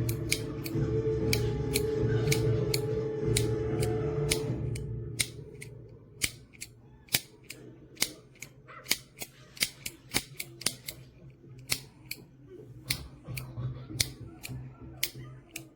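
A long series of sharp, dry clicks, about two to three a second at uneven spacing. For the first five seconds a steady low hum with a held tone runs under them, then fades out.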